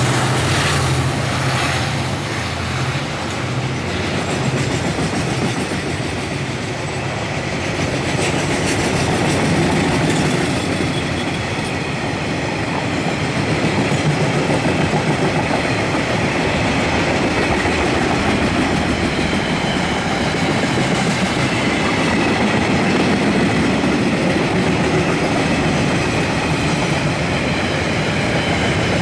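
KiwiRail DFT-class diesel locomotives passing with their engines droning, the drone fading over the first few seconds. After that, a long freight train of covered hoppers and container wagons rolls by with a steady rumble and the clickety-clack of wheels on the rails.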